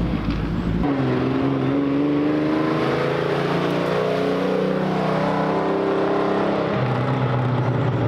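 Vintage race car engine running as the car drives past on the track, its note rising and then falling as it goes by, over a steady low engine hum.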